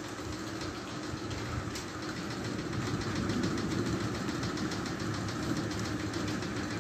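A steady low engine-like rumble with a faint rapid ticking, heard at night as the mysterious sound in the sky.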